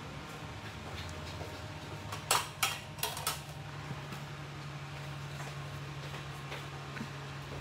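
A small motor's steady low hum, with a few sharp clicks of metal nail tools knocking together a couple of seconds in.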